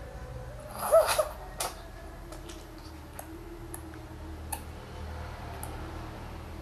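A baby gives one short vocal sound about a second in, followed by a few faint, scattered clicks.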